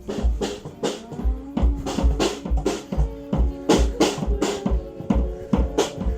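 Live band playing at a sound check: a drum kit keeps a steady kick-drum beat of about three thumps a second with sharp drum hits, under held pitched notes.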